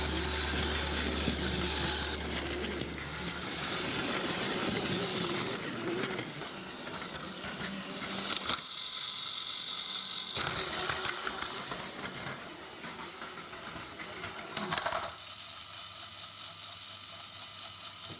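Plarail battery-powered toy trains running on plastic track: the small motor and gears whirring with a rattling clatter. It is louder in the first several seconds, gives a short, sharper clatter about fifteen seconds in, then goes on more quietly.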